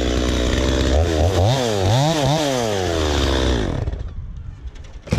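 Chainsaw engine idling, its throttle blipped four times in quick succession, then settling back to idle and dying away about three and a half seconds in. A short knock comes at the very end.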